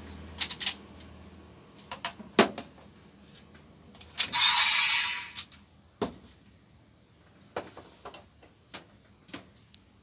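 Hard plastic clicks and clacks from a toy DX Monster Raise Buckle and Desire Driver belt being pressed and worked by hand, in irregular groups. About four seconds in, a click sets off a noisy electronic sound effect from the toy's speaker that lasts about a second.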